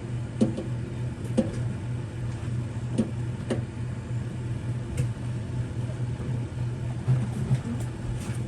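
Small metal clicks and taps as a valve core removal tool is handled and threaded onto a mini-split service port, over a steady low machine hum.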